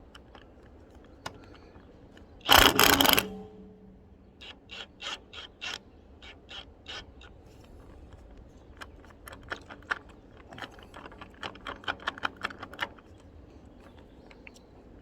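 A short, loud rattle about two and a half seconds in, then a run of sharp ratchet clicks, two or three a second, as a socket ratchet loosens an excavator's hydraulic hose fitting.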